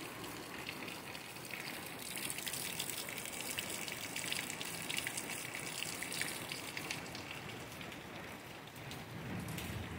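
Heavy rain falling steadily: an even hiss of drops.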